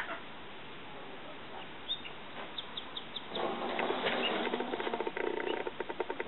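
Male domestic turkey in courtship display shaking its spread feathers, making a rapid rustling rattle that starts a little past halfway and keeps going. A few short, high chirps come before it.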